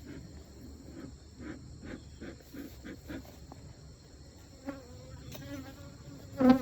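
Honeybees buzzing around an open hive, some of them agitated, with a low pulsing hum; at the very end a bee flies close past the microphone with a short, loud buzz.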